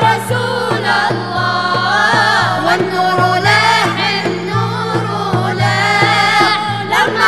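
Mixed group of voices singing an Arabic Islamic nasheed in praise of the Prophet in chorus, holding long, ornamented notes, over a steady low drum beat of about three to four strokes a second.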